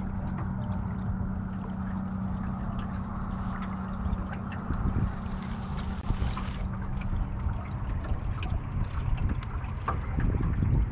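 Small boat motor on a jon boat running with a steady low hum, with water trickling and lapping along the hull.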